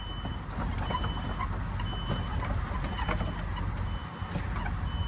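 A vehicle's engine running as it backs up, with a reversing alarm beeping about once a second.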